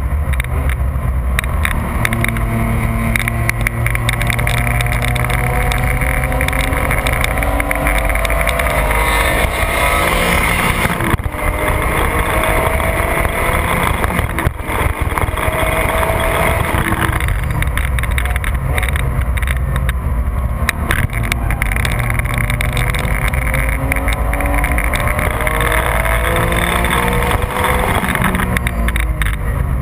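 Porsche 996 GT3's flat-six heard from inside the cabin, accelerating hard with the pitch climbing through several gears, dropping back at each upshift, over steady wind and road noise.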